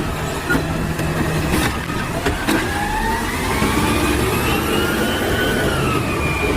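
Truck engine running loudly, likely a sound effect for the toy garbage truck. A whine rises from about two seconds in and eases down near the end, with a few sharp clicks early on.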